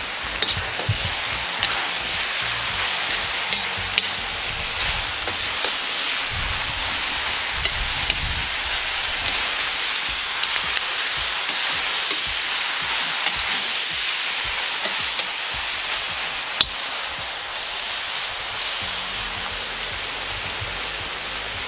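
Pork ribs, onion, carrot and freshly added bell pepper sizzling hard in a cast-iron kazan over a high wood fire: a steady, loud frying hiss. Now and then the metal skimmer clicks against the pot as the food is stirred.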